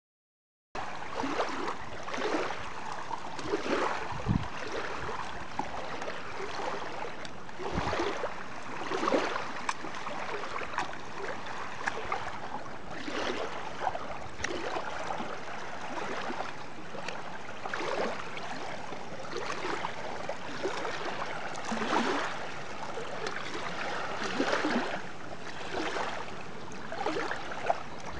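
Water rushing and splashing: a steady wash broken by frequent, irregular louder splashes, with two dull low thumps in the first third.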